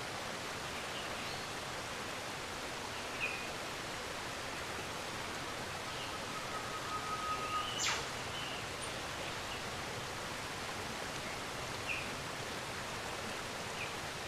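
Steady, even rush of a waterfall, with a few short bird chirps scattered through. About six seconds in, a thin steady whistling note holds for nearly two seconds and ends in a sharp click.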